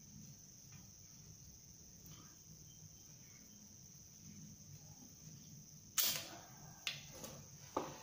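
Steady high-pitched chirring of crickets in the background, then a sharp knock about six seconds in and three more, smaller ones over the next two seconds, from wooden sticks being handled against a wooden workbench.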